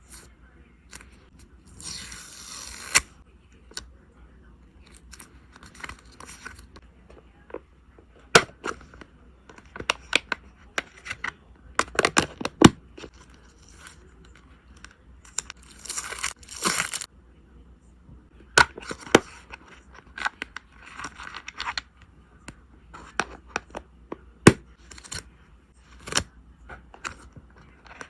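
Photocard packing sounds: plastic sleeves and tape rustling and tearing, with many sharp clicks and taps and two longer ripping noises, one near the start and one about halfway through.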